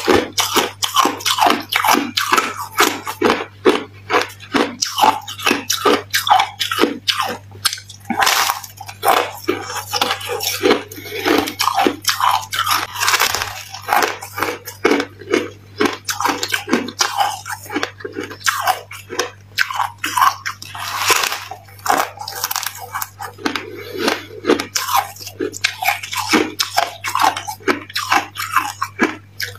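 Close-up biting and chewing of packed freezer frost: a dense run of crisp crunches with short pauses between mouthfuls.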